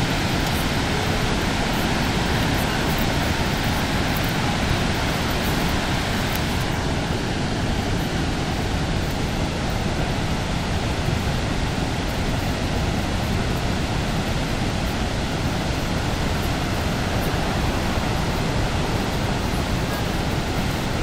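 Steady rush of falling water from Niagara's Horseshoe Falls, an even noise that holds constant with no breaks or distinct events.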